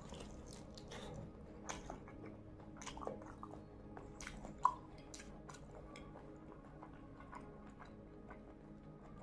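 Close-miked chewing of a gravy-soaked meat leg piece, with wet mouth clicks and smacks throughout and one sharp smack about four and a half seconds in.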